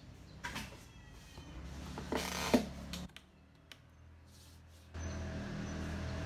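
Cardboard box flaps being pulled open, rubbing and scraping, with a sharp snap about two and a half seconds in. A steady low hum with a hiss comes in about five seconds in.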